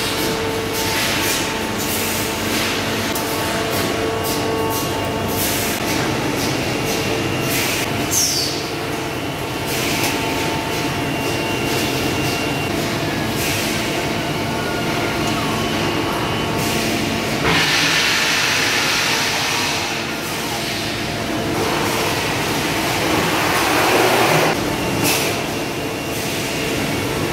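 Automated IBC and pallet destacker line running: a steady machine hum with several steady tones from its motors and conveyors, broken by scattered clanks and knocks. A short squeal comes about 8 seconds in, and there are two longer hissing stretches, one starting about 17 seconds in and another around 23 seconds in.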